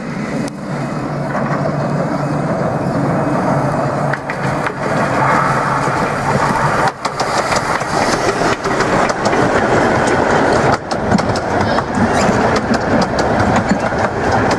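15-inch gauge steam locomotive No. 10 'Doctor Syn', a 4-6-2 Pacific, running past close by with its passenger train, a loud steady rush of steam and running gear. Its coaches then roll by, their wheels clicking over the rail joints, thicker towards the end.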